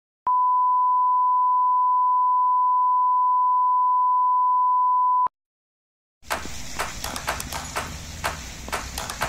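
A steady 1 kHz test-tone beep, the tone that goes with a color-bars test pattern, held for about five seconds and cut off sharply. After a second of silence, noise with many light clicks begins.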